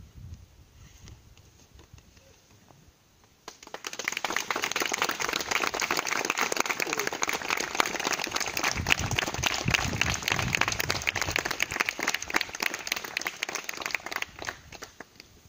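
A small group of people applauding, starting suddenly about three and a half seconds in and lasting about ten seconds before fading out.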